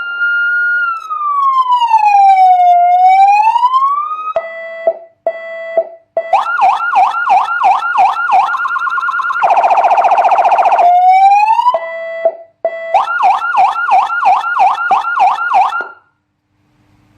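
A 200-watt electronic siren through its siren speaker, cycling through its tones. It plays a slow wail that falls and rises, short low blasts, a fast yelp of about four sweeps a second, and a harsh buzzing horn tone, then the yelp again. It cuts off about a second before the end.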